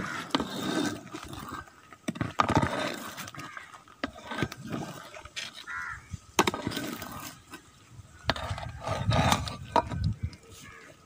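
Long metal ladle stirring rice in a large aluminium pot of water: irregular scrapes and knocks against the pot, with sloshing.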